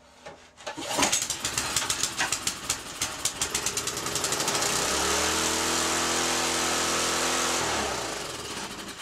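Small rototiller engine catching and firing in quick pulses that speed up until it runs wide open at a steady high speed, then winding down near the end. Running flat out like this is the sign of a throttle that is still sticking.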